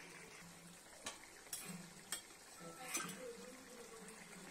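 A steel spoon clinks against steel cookware four or five times, in short separate taps and scrapes.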